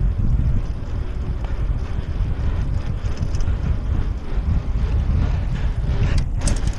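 Wind buffeting the microphone over the low rumble of a Trek Marlin 6 mountain bike rolling fast on an asphalt path. Near the end comes a brief hiss of water as the tyres cut through a puddle.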